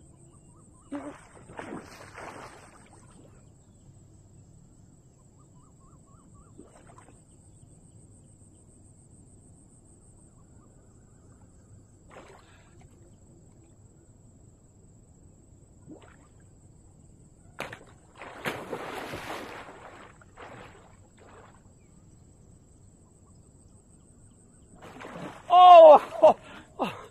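Quiet canal-side ambience with a faint steady insect buzz. About 18 seconds in, a sharp splash and a two-second rush of water as a cast net lands and is drawn through the canal. Near the end comes a man's loud, short exclamation.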